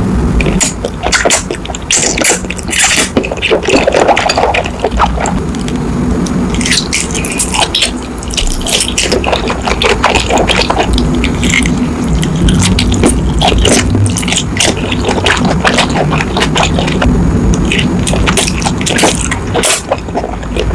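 Close-miked food sounds: dense, irregular crackles and wet clicks throughout.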